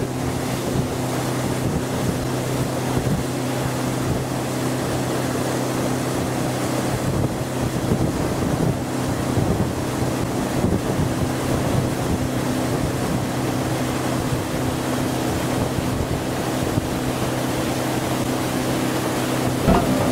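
A 7-metre half-cabin powerboat's engine running steadily under way, a constant low hum, with water rushing past the hull and wind on the microphone.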